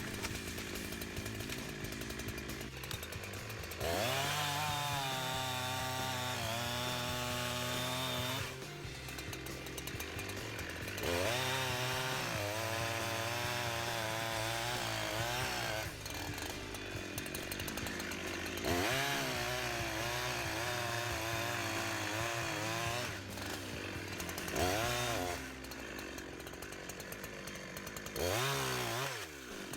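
Holzfforma G372XP two-stroke chainsaw revving up to full throttle five times, the pitch wavering under load during the longer runs, and dropping back to a steady idle between.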